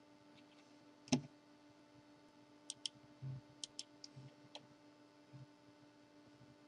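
Computer mouse clicks, a single loud one about a second in, then several in quick pairs, over a faint steady electrical hum.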